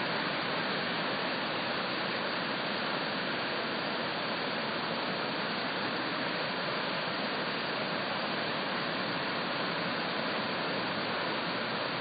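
Swollen, muddy river in flood, rushing steadily in an even, unbroken noise.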